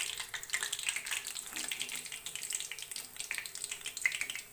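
Batter-coated cabbage-leaf chops deep-frying in oil in a steel kadai: a steady sizzle of fine crackles.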